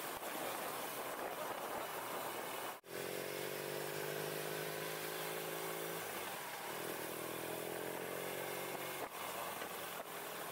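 Motorcycle on the move: wind rushing over the microphone, then, after a cut about three seconds in, a steady engine note that climbs slowly in pitch as the bike gathers speed, and does so again a few seconds later.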